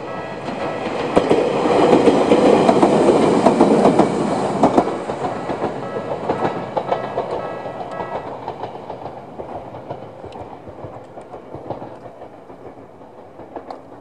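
Ueda Electric Railway 1000 series electric train passing over a level crossing, its wheels clicking over the rail joints, loudest in the first few seconds and then fading as it moves away. The crossing's electronic warning bell, of the Tokyu type, rings over it and stops about eight seconds in.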